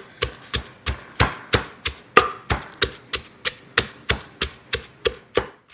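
Pestle pounding lemongrass, chilies and salt in a mortar: a steady run of thuds, about three a second, that stops abruptly at the end.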